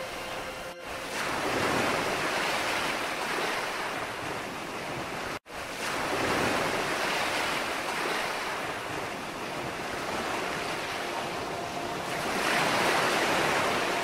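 Ocean surf washing onto a sandy beach, from a mixed-in beach ambience recording: a steady wash that swells and eases every five or six seconds as waves break. The sound cuts out for an instant about five seconds in.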